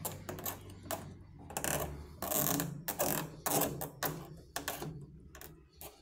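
Plastic water-inlet hose coupling being screwed by hand onto a washing machine's threaded plastic inlet: an irregular run of plastic clicks and scraping rasps, thickest in the middle and thinning out near the end.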